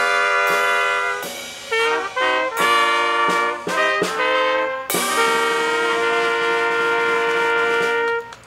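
Brass band music: a run of short, sharply attacked notes, then a long held chord from about five seconds in that cuts off near the end.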